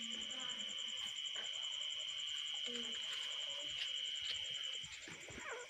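Night insects chirring: a steady high-pitched tone with a rapid pulsing buzz above it, which stops shortly before the end, with a few faint short low calls mixed in.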